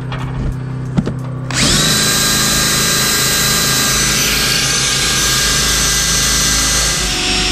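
Cordless drill starting up about a second and a half in and running steadily at full speed with a high whine, boring through hard old steel.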